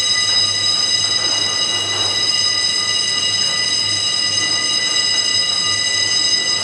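A steady, high-pitched alarm tone sounding without a break over a low hum.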